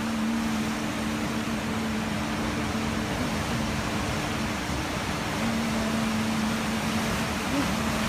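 A steady rushing noise with a low held drone over it, one of its tones wavering and briefly bending in pitch.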